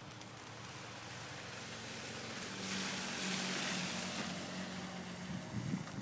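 An SUV driving past on a snow-covered street: a steady engine hum and the hiss of tyres through snow, swelling about three seconds in as it passes close, then easing off.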